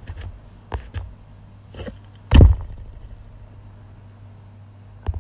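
A few light knocks in the first two seconds, then one heavy thump about two and a half seconds in, over a faint steady low hum.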